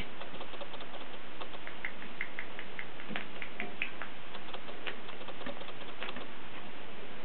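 A kitten's claws and paws clicking and ticking on a wire pet-pen gate as it paws and climbs at it, in small irregular taps with a quicker run of clicks about two seconds in.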